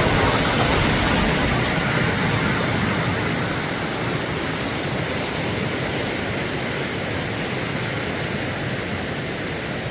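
Snowmelt-swollen mountain creek rushing over rocks: a steady water roar that eases a little over the first few seconds.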